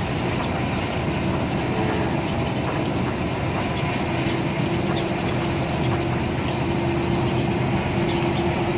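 Steady engine and road noise inside a coach cabin cruising on a motorway. A steady whine joins in about halfway through.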